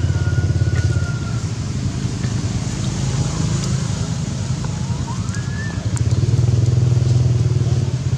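A motor engine running steadily with a low rhythmic drone, growing louder about six seconds in.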